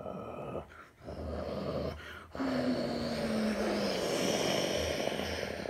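Airbus A330 airliner on final approach passing low overhead, its jet engines swelling to a loud rush. A falling tone comes in about halfway through as it goes over.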